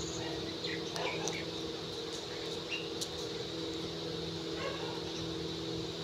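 A steady low mechanical hum, with a few short bird chirps and sharp clicks over it about one, three and four and a half seconds in.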